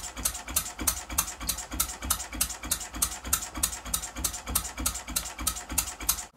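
Small vertical A-frame model true diesel engine (20 mm bore, 40 mm stroke) running steadily with a sharp, even beat at about five strokes a second. The sound cuts off suddenly just before the end.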